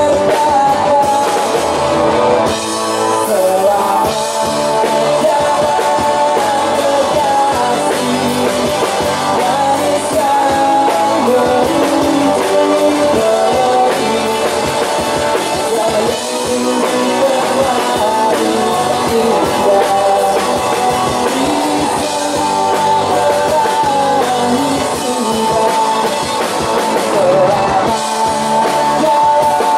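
Live rock band playing through a stage PA, with electric guitars and a male singer over the band.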